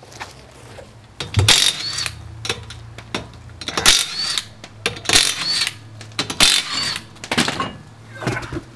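Impact wrench (rattle gun) spinning off a small car's wheel nuts one after another: four short rattling bursts, each with a brief rising-then-falling whine.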